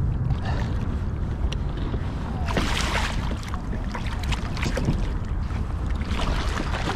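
Wind rumbling on the microphone, with a striped bass thrashing and splashing at the surface beside a kayak as it is grabbed by the lip; the loudest splash comes about two and a half seconds in, another near the end.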